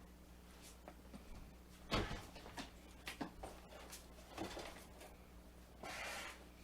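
Loaded welding bag worn on the back knocking and rubbing as the wearer moves: a few dull knocks with lighter ticks between, then a short scraping rustle near the end.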